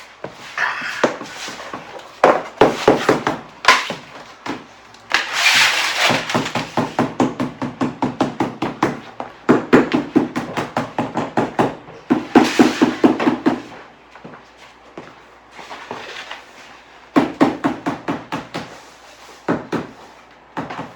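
Quick runs of hammer-like knocks, several a second, broken by short pauses: tapping while laying peel-and-stick vinyl floor tiles.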